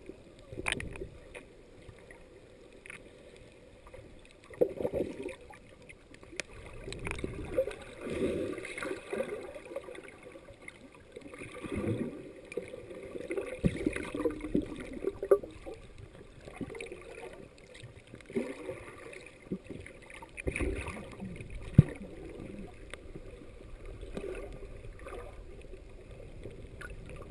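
Muffled water swishing and gurgling recorded under water, swelling and fading unevenly as a swimmer moves and strokes nearby, with a few sharp knocks, the loudest about three-quarters of the way in.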